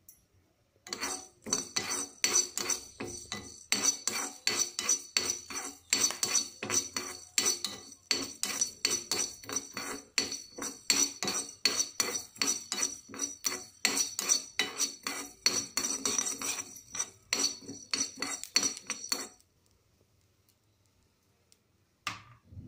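A steel spoon stirring coriander and cumin seeds as they dry-roast in a metal kadai: a long run of quick, repeated metal-on-metal scrapes with a high ring from the pan, stopping about three seconds before the end.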